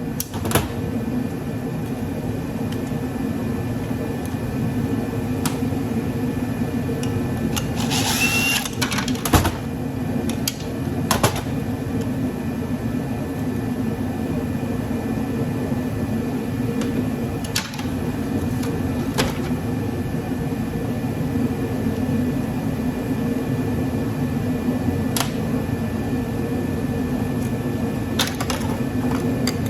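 Steady drone of a heater running throughout. Over it come scattered clinks and taps of metal parts and tools being handled as a charger is dismantled for scrap.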